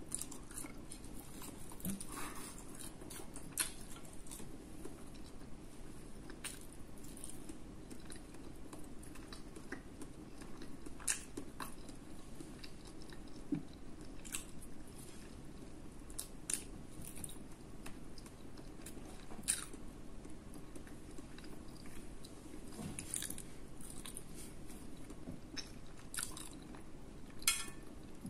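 Close-miked chewing of soft vegetable pasta and a meatball: wet mouth smacks and clicks at irregular intervals over a low, steady background hum.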